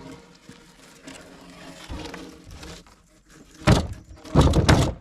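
Heavy timber being handled: a low background hum, then two loud wooden knocks and scrapes near the end.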